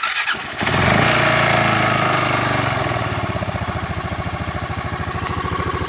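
A 400cc scooter engine, swapped into a Yamaha Morphous and running through a temporary Yamaha Majesty muffler, fires on its first startup after the swap. It catches after a brief crank, revs up for a moment about a second in, then settles to a steady, even idle.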